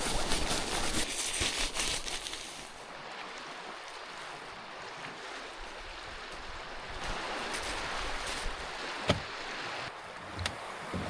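Wind-driven water lapping and splashing around a canoe, with a sharp knock about nine seconds in and a smaller one about a second later.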